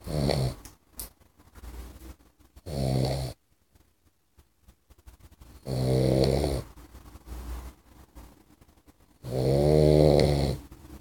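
Boxer puppy snoring in its sleep: four loud snores about three seconds apart, the last one the longest.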